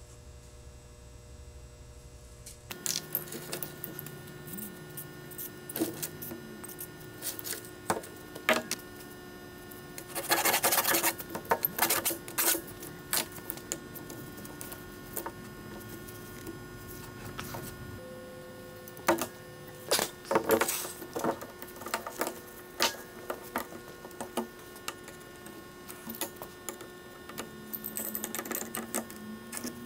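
Irregular metal clinks, taps and knocks from hand tools working on an antique Ford Model TT cast-iron screw jack, with a short hiss of aerosol penetrating-oil spray about ten seconds in. A faint steady hum underlies it.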